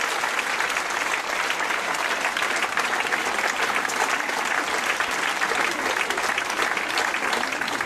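A large crowd applauding: dense, steady hand-clapping from many people.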